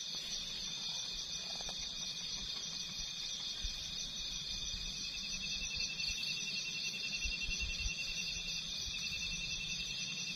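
Crickets chirping in a steady night chorus, several trills at different pitches overlapping without a break.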